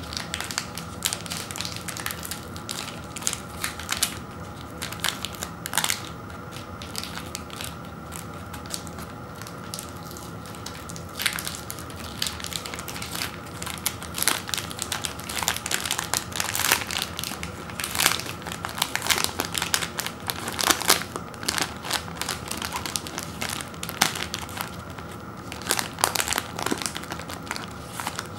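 Foil-lined granola bar wrapper crinkling and crackling as it is torn open at one end and peeled apart by hand. Many sharp crackles come in quick runs, busiest in the second half.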